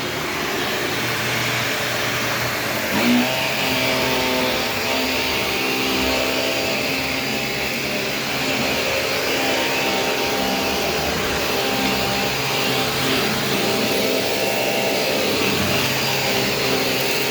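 Shark vacuum cleaner running steadily, a continuous motor hum with a brief bump in level about three seconds in.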